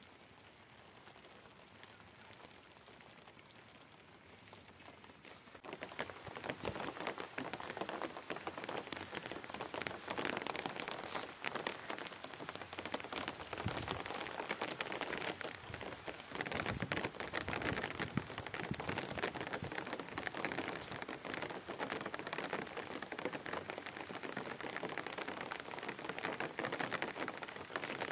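Rain falling, a dense patter of drops. It is fainter at first and becomes much louder about six seconds in, then keeps up steadily.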